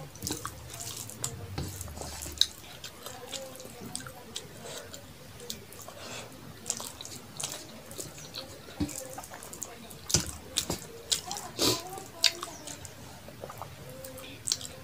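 Close-miked hand-eating sounds: fingers squishing rice mixed with bottle gourd and shrimp curry on a metal plate, and wet chewing, heard as irregular wet clicks and smacks, with a few louder ones around ten to twelve seconds in.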